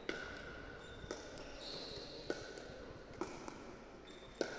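Pickleball paddles striking a plastic pickleball in a soft net exchange, five sharp pocks about a second apart, with short squeaks of shoes on the hall floor between them.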